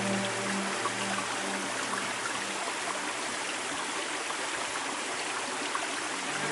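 Stream water flowing steadily: an even, unbroken rush.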